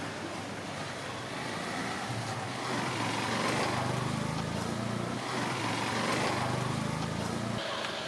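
Street traffic with a motor vehicle engine running, its low hum growing louder about two seconds in and stopping suddenly near the end.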